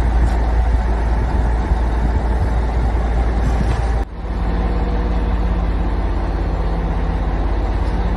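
Loud machinery noise: a heavy, uneven low rumble, then after an abrupt break about four seconds in, a steady engine-like hum with held drone tones.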